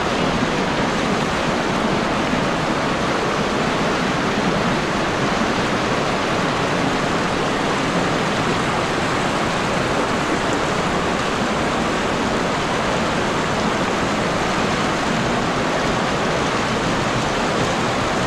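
Kanarra Creek running high and fast over rocks: a loud, steady rush of whitewater.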